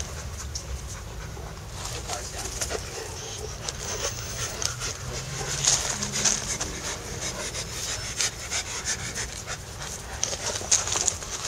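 Two young dogs panting and scuffling as they tug on a rope toy. The sound grows busier and louder from about two seconds in, as a rapid run of short, breathy strokes.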